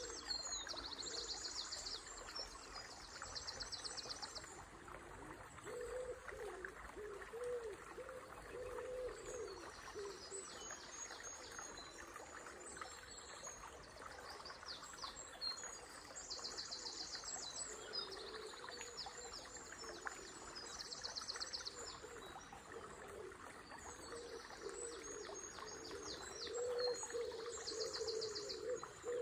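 Dawn birdsong over a flowing river. Several songbirds sing high, fast trills that repeat every few seconds, and lower, wavering hoot-like calls come and go, all over a steady rush of water.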